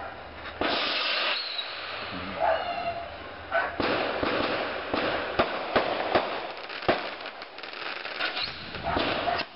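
Fireworks going off: a string of sharp bangs at uneven intervals, with crackling between bursts.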